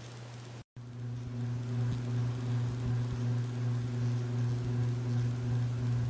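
The motor of a 42-inch Nadair spinner ceiling fan running on medium speed, giving a steady electrical hum: the extra noise that comes with this speed setting. The hum cuts out for a moment under a second in, then comes back louder.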